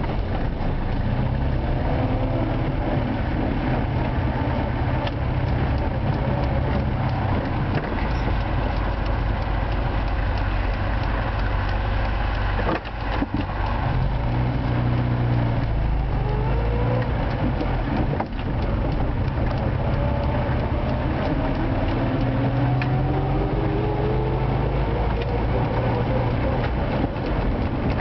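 Old Moskvich car's engine running while driving, heard from inside the cabin, its pitch rising as it accelerates, with brief drops at gear changes about 13 and 18 seconds in.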